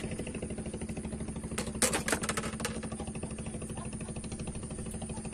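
A small engine running steadily with a rapid, even pulse and a constant low hum. A short cluster of sharp clicks and knocks comes about two seconds in.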